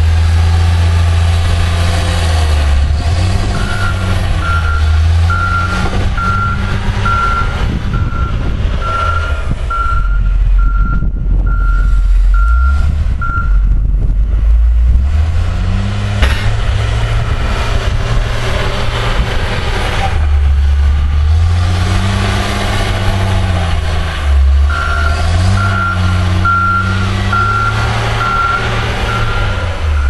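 John Deere wheel loader's diesel engine running under load, its pitch rising and falling as it works. Its reversing alarm beeps a little more than once a second while it backs up, in two spells: from a few seconds in to about halfway, and again near the end.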